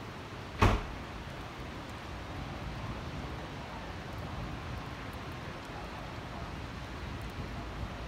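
Steady hiss of rain mixed with the low hum of distant city traffic. Just under a second in there is a single sharp knock close to the microphone, the loudest sound here.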